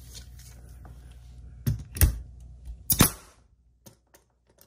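Handling noise of a stud finder being worked along a wall: a few sharp taps and clicks, the loudest about two and three seconds in.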